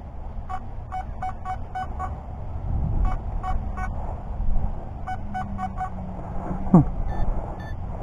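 Nokta Makro Anfibio Multi metal detector giving runs of short, same-pitched target beeps as its coil passes back and forth over a buried metal target, over a steady low rumble. Near the end a quick falling tone sounds, then two short, higher beeps.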